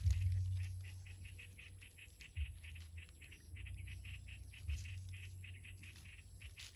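A fast, steady series of short high chirps, about six a second, over a low rumble with a few dull bumps.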